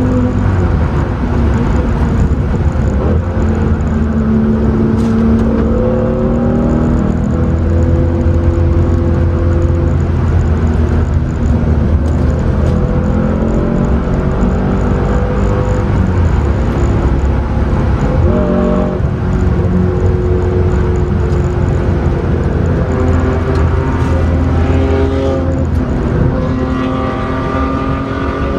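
Mercedes C63 AMG's 6.2-litre V8 pulling hard on track, heard from inside the cabin. Its pitch climbs and drops again and again as it revs up through the gears and eases off, over steady tyre and wind noise, with a strong climb again near the end.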